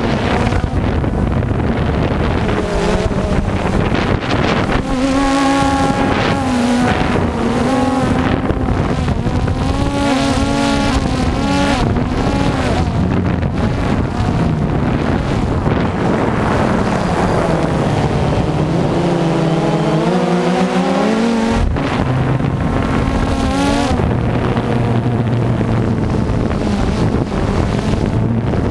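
Drone's electric motors and propellers whining, the pitch repeatedly rising and falling as the throttle changes, over a steady rush of wind.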